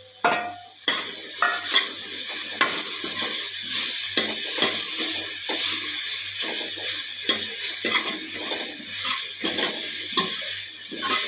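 Steel ladle scraping and knocking against a stainless steel kadai as minced soya chunks are stirred and fried, over a light sizzle. A loud knock just after the start, then irregular scrapes and clinks, about one or two a second.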